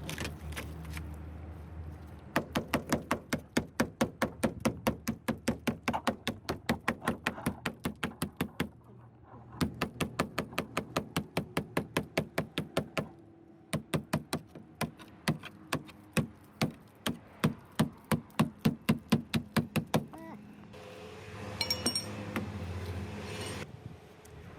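Rapid, even hammer blows, about four to five a second, in three runs separated by short pauses. They are followed near the end by a quieter patch of faster, lighter clicking.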